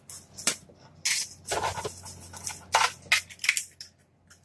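Plastic lure packaging being handled: a run of short crinkles and clicks, coming thickest a little before the end.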